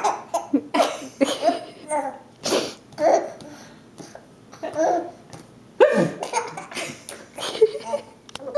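People laughing in repeated short outbursts.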